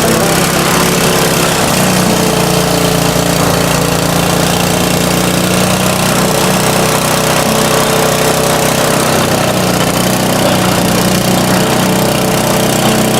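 A small motor running steadily at a constant speed, used to clean a minibike part quickly.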